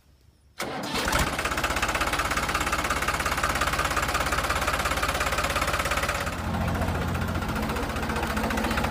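Tractor engine sound that starts abruptly about half a second in and runs with a fast, even chug. About six seconds in, its tone drops deeper.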